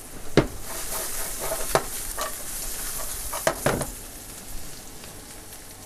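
Garlic, carrot and green onions sizzling in oil in a frying pan as they are stirred, the utensil knocking against the pan a few times. The sizzle fades after about four seconds.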